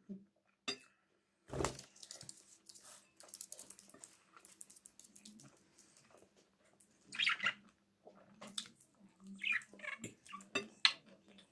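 Budgerigar chirping in short bursts, once about seven seconds in and again near the end, over quiet clicks of a fork in a bowl and chewing.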